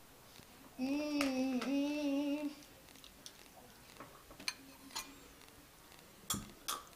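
A voice hums one wavering, held note for about two seconds, followed by several light clinks and taps of a glass and dishes on a table.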